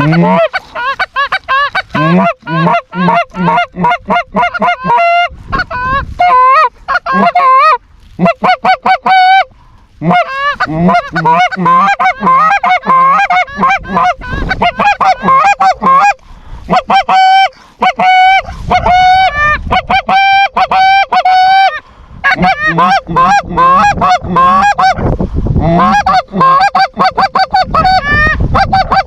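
Canada goose honks and clucks, many in rapid succession, loud and nearly continuous, with a few short breaks and some longer drawn-out honks.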